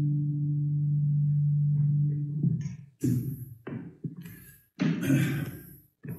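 A low, sustained musical chord of several held notes ends about two and a half seconds in. It is followed by a string of short, irregular rustles and knocks with brief gaps between them.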